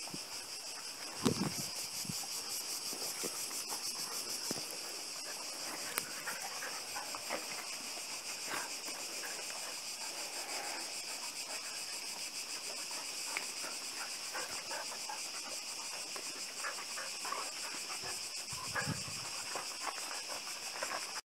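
A steady, high, pulsing chorus of insects. Over it, two dogs play-fight on gravel with small scuffling clicks, and give a short low grunt or growl about a second in and another near the end.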